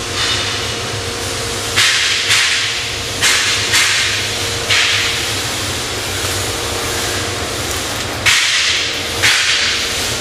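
Short, sharp bursts of pressurised air hissing, about seven of them, each under a second and coming in uneven groups, over a steady low workshop hum.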